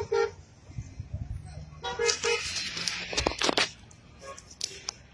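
Car horn tooting in quick short beeps, a few at the start and a burst of three about two seconds in, over street noise.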